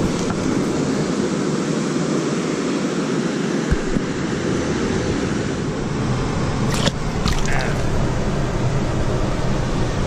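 Steady rush of water pouring through a dam spillway, with a couple of brief sharp clicks about seven seconds in.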